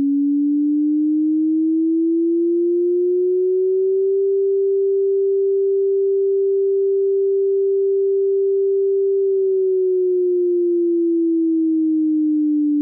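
Synthesized tsunami-warning siren: a single pure tone that rises slowly in pitch over about four seconds, holds steady, then glides back down over the last three seconds. It is a computer-made imitation of the national-standard tsunami warning siren, not a recording of a real siren.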